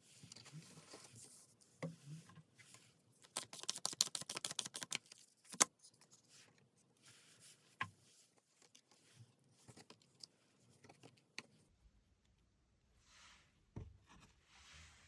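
Tarot cards being handled and shuffled: faint rustling with a run of rapid card flicks about three seconds in, and a few single sharp clicks.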